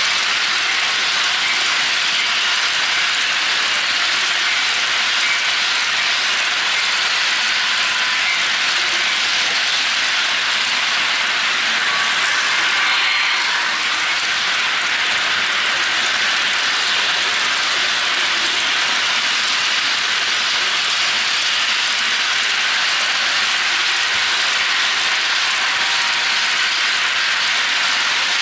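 HO-scale model freight train rolling past close by, a steady rattling clatter of its wheels on the track.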